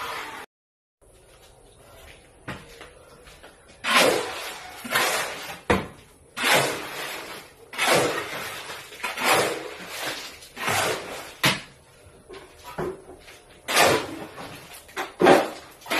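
Wood being worked by hand: a run of rasping strokes at an uneven pace, roughly one a second, starting about four seconds in.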